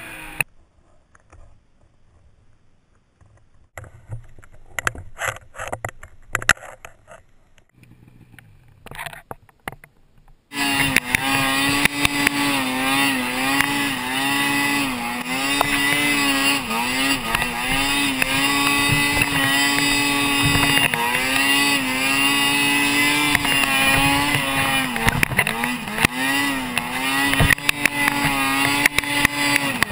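For about the first ten seconds only faint scattered knocks and scrapes, then a Ski-Doo snowmobile engine cuts in suddenly and runs loudly for the rest, its pitch rising and dipping with the throttle.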